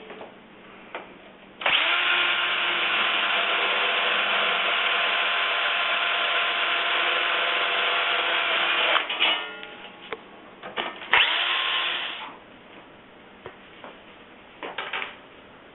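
Electric drill running steadily for about seven seconds, boring a 9/64-inch hole, then stopping. After a few clicks and knocks it runs again briefly, for about a second.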